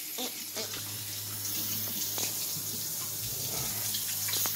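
Kitchen tap running into a stainless steel sink, a steady hiss of water, with a few light knocks.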